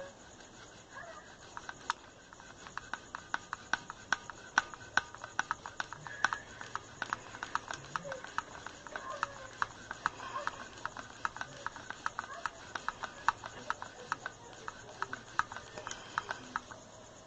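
Rapid, irregular clicking: sharp clicks several times a second over a faint steady hiss.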